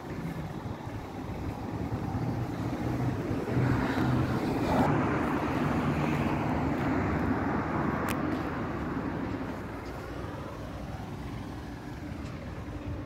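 A motor vehicle passing by, its engine and road noise swelling to a peak about four to six seconds in and fading away by about ten seconds.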